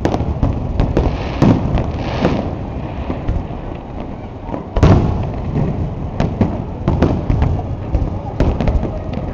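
Fireworks display: aerial shells bursting one after another over a continuous rumble of booms, with a loud bang about five seconds in.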